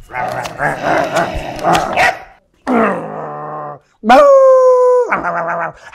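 A man imitating a dog: about two seconds of rough growling, then a whining call that falls in pitch, then a loud, long held howl and a short yelping call near the end.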